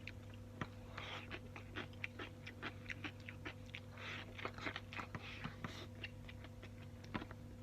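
A person chewing a mouthful of rice mixed with braised tofu and pickled cucumber: many small, irregular, wet clicks and crunches, quiet, over a faint steady hum.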